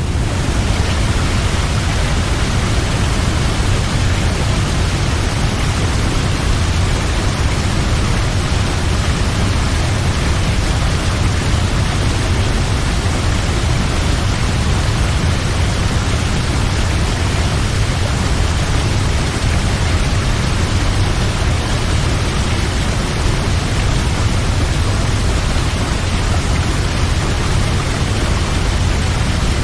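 Large waterfall: a steady, loud rush of falling water with a deep low rumble underneath.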